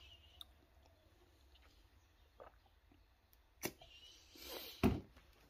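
Faint handling sounds as a plastic syrup bottle is poured and handled: a few light clicks, a brief rustle, and a knock near the end.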